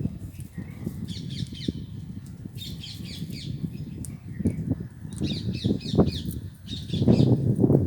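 Indian ringneck (rose-ringed) parakeets calling in short bursts of rapid high chirps, about one burst every two seconds, over a low rumbling noise that grows louder near the end.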